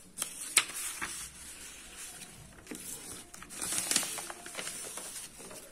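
Sheets of paper rustling and crinkling as loose pages are shuffled and moved on a desk, with a few sharp crackles, loudest a little before the end.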